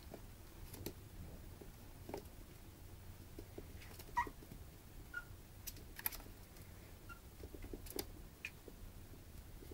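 Puppies scuffling on a wooden floor: faint, irregular clicks and taps of claws and paws, with a few short, high squeaks from a puppy, the loudest about four seconds in.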